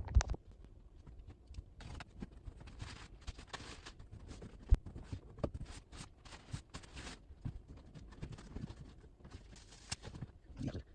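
A parts shipping package being opened and unpacked: irregular rustling and crinkling of packaging, with a few sharp clicks and knocks.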